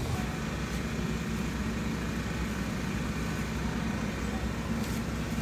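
Steady low engine hum with one faint knock near the end: a cleaver striking a wooden chopping block.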